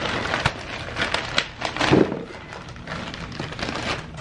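Plastic wrapping crinkling and crackling as hands pull it off a new flywheel, with a dull knock about two seconds in.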